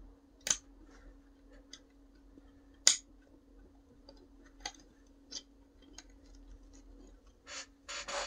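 Small clicks and taps of a thin steel ruler and a wire pick against 3D-printed plastic parts while a small coil spring is worked into place. There are two sharper clicks about half a second and three seconds in, lighter ticks after that, and a short rustle near the end, over a faint steady hum.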